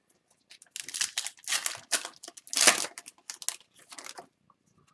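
Crinkling and tearing of a hockey card pack wrapper being ripped open and handled, in a string of bursts lasting about three and a half seconds, the loudest just past the middle.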